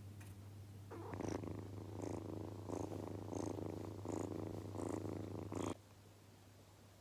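Kitten purring close to the microphone: a steady low purr that swells with each breath, about every 0.7 seconds, then stops abruptly near the end.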